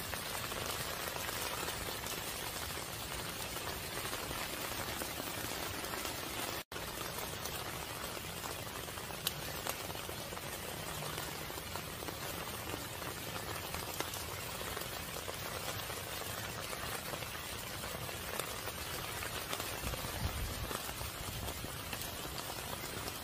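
Steady rain falling on leaves and plastic mulch: an even hiss with now and then a sharper drop tick.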